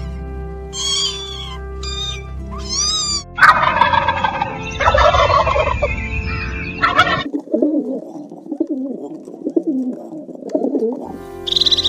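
A run of animal calls in turn: short, high calls sweeping up and down over light background music, then about four seconds of a loud, dense rattling call, then several seconds of lower, wavering calls.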